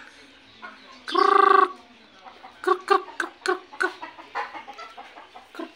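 Rooster clucking: one louder drawn-out note about a second in, then a quick run of short clucks, with a few more scattered clucks near the end.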